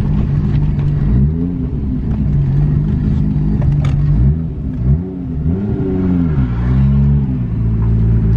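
Nissan Skyline R33's turbocharged straight-six engine under way, holding a steady note and then rising and falling in pitch several times through the second half as the car accelerates and eases off.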